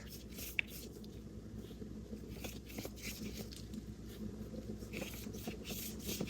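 Paintbrush working acrylic paint: faint, irregular scratchy strokes of bristles on paper or palette, with one sharp tick about half a second in.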